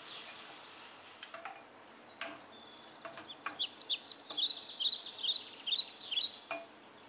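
A bird chirping a quick run of short, falling notes for about three seconds in the second half, with a few light clicks and scrapes of a wooden spatula stirring food in a non-stick pan.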